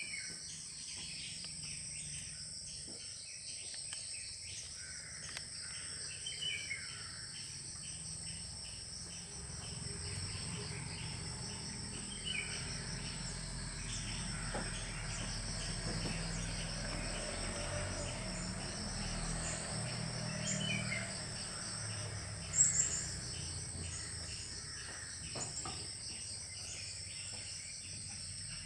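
Steady, high-pitched insect chorus, with a few short chirps scattered through it and one brief sharp sound about 22 seconds in.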